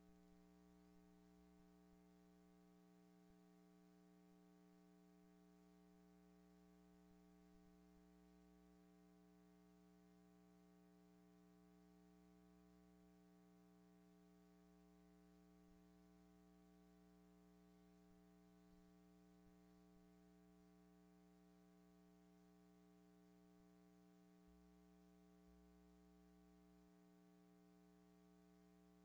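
Near silence on a soundless film, with only a faint steady electrical hum.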